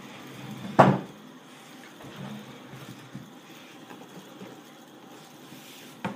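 A single thump on a wooden tabletop about a second in, with a lighter knock near the end, as a person's arms come down on the table; between them only faint room noise.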